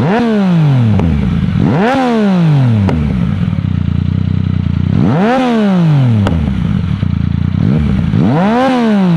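Motorcycle engine idling and being blipped on the throttle four times, each rev shooting up and falling back to idle within about a second.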